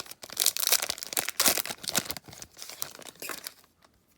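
The wrapper of a 2014 Topps football card pack being torn open and crinkled. The crackling stops about three and a half seconds in.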